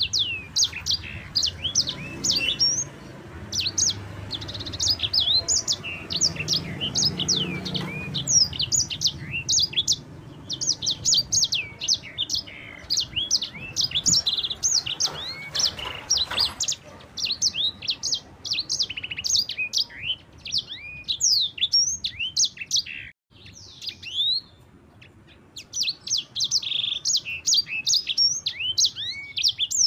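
Sanger songbird singing a fast, continuous run of short, high sweeping chirps and trills in a long rolling song, with a brief pause a little over two-thirds of the way through.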